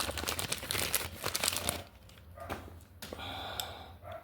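Crinkling and rustling of the new brake pads' packaging being handled and opened, dense for the first couple of seconds, then quieter with a few scattered clicks.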